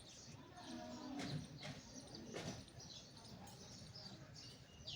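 Faint, scattered chirps of small birds, with a faint voice or animal call about a second in.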